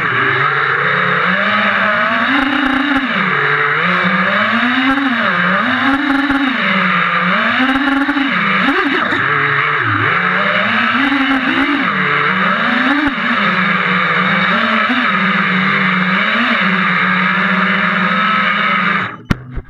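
FPV quadcopter's electric motors and propellers whining, heard from the camera on board, the pitch swelling and dropping about once a second with the throttle. Near the end the whine cuts off suddenly, followed by two short knocks.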